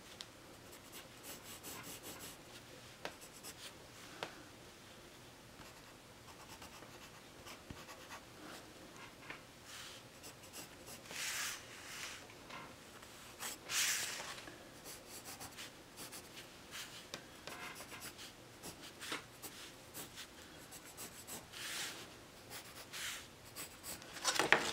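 Blue pencil scratching on paper in short, irregular strokes as lines are drawn, some of them ruled along a wooden ruler. The strongest strokes come about halfway through and just before the end.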